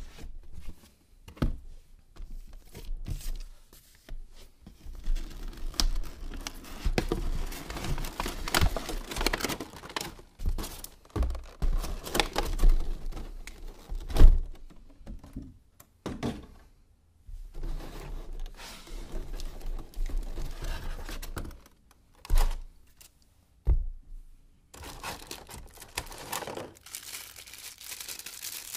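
Plastic packaging crinkling and tearing as a boxed gadget is unpacked by hand, in irregular bursts of rustling with short pauses. A few sharp knocks, the loudest about halfway through, as the box and device are handled and set down.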